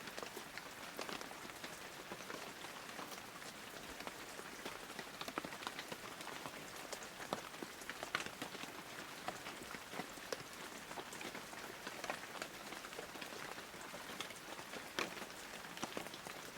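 Light rain pattering: a faint steady hiss dotted with scattered drop ticks.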